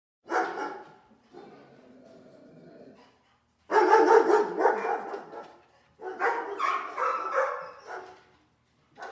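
A dog barking in several loud bursts: once just after the start, then a quieter, longer sound for about a second and a half, then two long runs of barking in the middle and latter part, and one short bark at the end.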